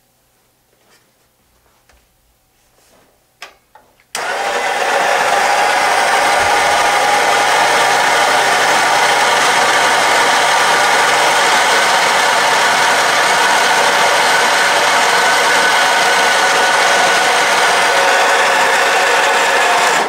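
Gaggia MDF burr grinder switched on about four seconds in, running steadily and loudly as it grinds Grindz cleaning tablets through its burrs, a steady whine over a grinding rasp; it cuts off at the end. This is the burr-cleaning cycle that scrubs coffee oils off the burrs.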